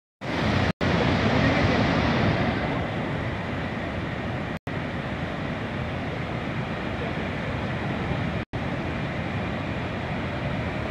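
Steady roar of a large waterfall, Niagara's Horseshoe Falls, a little louder in the first couple of seconds. It cuts out briefly three times.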